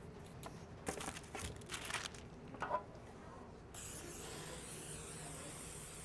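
Aerosol can of cooking spray hissing steadily for about two seconds as a baking pan's sides are greased, starting a little past halfway.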